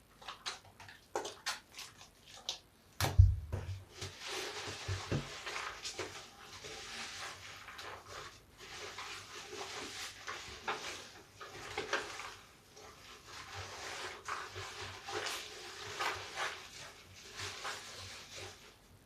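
Large soapy bath sponge being squeezed and kneaded by hand: a few wet clicks, a thump about three seconds in, then continuous wet squishing and crackling of lather.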